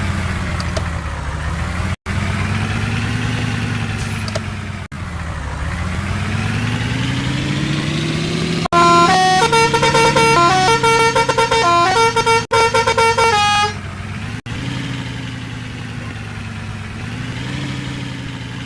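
Bus 'telolet' musical horn: a multi-tone horn playing a quick stepping tune for about five seconds in the middle. Before and after it, a lower pitched sound slowly rises and falls.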